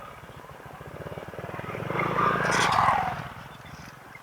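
Honda PCX160 scooter engine running at a steady speed, with another vehicle passing close by that swells up, is loudest about two to three seconds in, and fades away.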